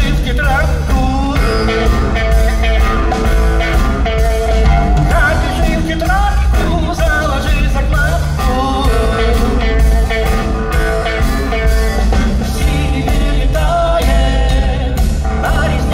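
A live rock band playing: guitar, bass guitar and drum kit, with a man singing over them.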